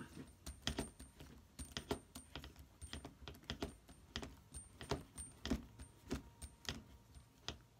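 Faint, irregular small clicks and ticks, about two or three a second, of a screwdriver turning a small bolt and the metal hardware shifting as a brake caliper is tightened onto an RC truck's front hub.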